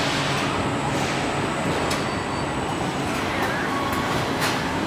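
Steady din of car-assembly-plant machinery running on the factory floor, with a faint high steady whine and two short, sharp sounds, about two seconds in and again near the end.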